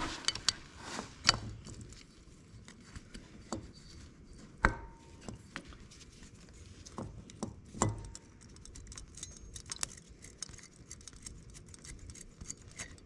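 Scattered metal clicks, clinks and knocks of hand tools and fasteners while a carburetor is unbolted from a 1986 Yamaha Moto 4 ATV. Two of the knocks ring briefly.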